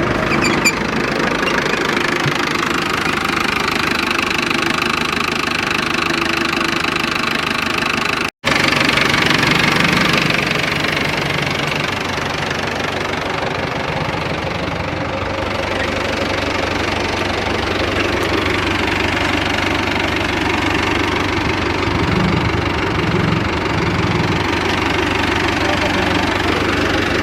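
Diesel tractor engine running steadily, broken by a momentary drop-out about eight seconds in.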